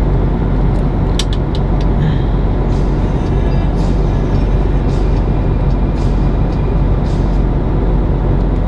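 Semi truck's diesel engine idling while stopped, a steady low drone heard from inside the cab, with a few faint clicks about a second in.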